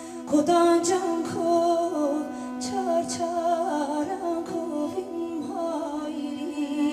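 A woman singing a slow, wavering melody into a microphone in a live performance, over steady held accompaniment tones. The voice comes in about a third of a second in.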